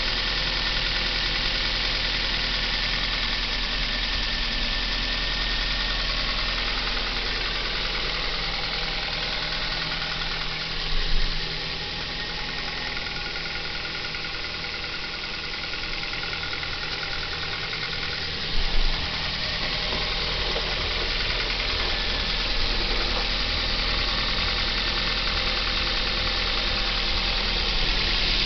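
Kia Ceed engine idling after a cold start, with the engine knock that its owner says fades away as the idle revs drop. Twice a brief louder noise rises over the steady running.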